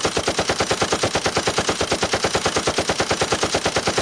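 Machine gun firing one long, continuous automatic burst of rapid, evenly spaced shots.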